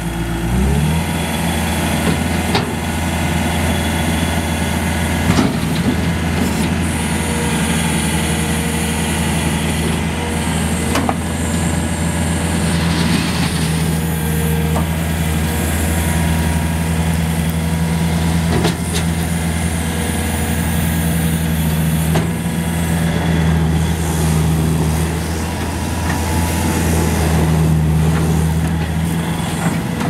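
Bobcat S300 skid steer's diesel engine running steadily at working throttle, its note rising about a second in, as the machine scoops and dumps gravel. A few short knocks come from the bucket and gravel.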